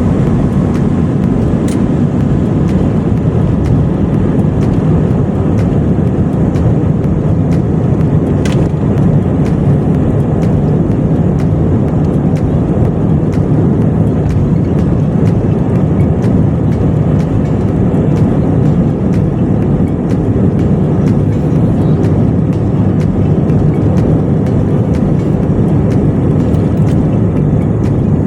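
Steady low rumble of a jet airliner heard from inside the passenger cabin: engine and airflow noise holding at an even level.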